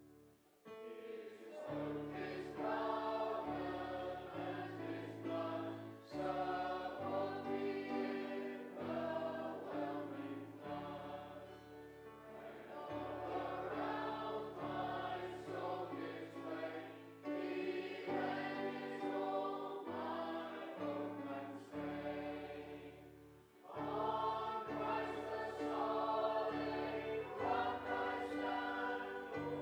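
Congregation singing a hymn together over held, steady accompaniment notes, phrase by phrase, with a brief pause just after the start and another about 23 seconds in.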